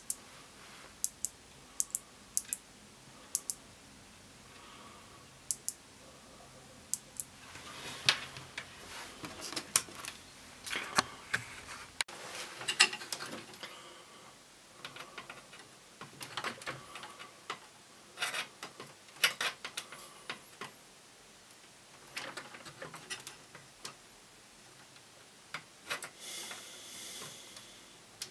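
Irregular light clicks and taps, typical of hands handling small hard parts. They are sparse at first, then come thicker with some rustling after about seven seconds, and there is a short rustle near the end.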